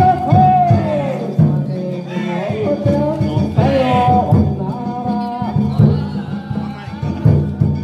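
A solo voice singing a Japanese folk-style song with instrumental accompaniment and sharp drum strikes.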